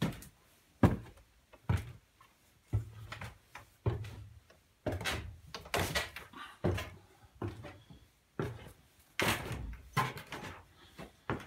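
Footsteps climbing a staircase: a run of heavy, separate steps a little under a second apart.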